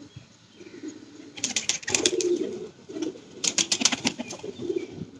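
Domestic pigeons cooing, with two short bursts of rapid clicks about one and a half and three and a half seconds in.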